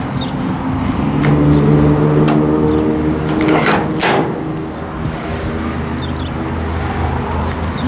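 Steel drop-side latch lever on a tipper truck's aluminium load bed clacking as it is worked, with a loud clunk about four seconds in as it is pushed shut. A motor vehicle engine runs steadily underneath.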